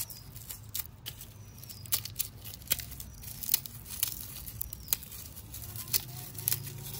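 Dry, papery garlic skins crackling and tearing as a garlic bulb is broken apart and peeled by hand, in irregular sharp crackles.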